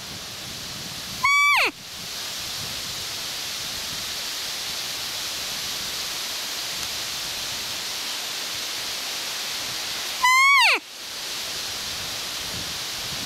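Roe deer barking in alarm: two loud, harsh barks about nine seconds apart, each about half a second long and falling sharply in pitch at the end, over a steady background hiss. The bark is the deer's alarm call on noticing the stalker.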